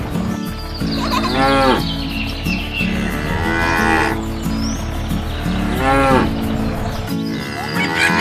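Cow mooing four times, one call roughly every two seconds, each rising and then falling in pitch, over steady background music.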